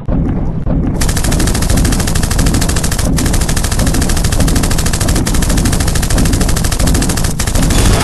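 Rapid automatic gunfire: a rifle firing in one long continuous burst that starts about a second in, broken only by two brief pauses.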